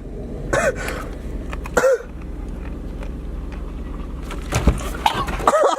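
A person's short throaty vocal sounds, twice in the first two seconds and again near the end, over a steady low rumble.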